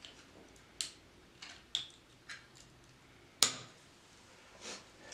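About half a dozen light, separate clicks and taps from small parts being handled and hooked back onto a 3D printer, the loudest a sharp click about three and a half seconds in.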